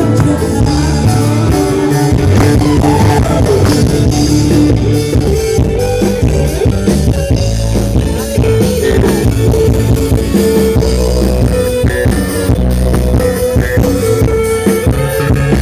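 Loud band music with drums, bass and guitar played through a sound system whose sound is broken.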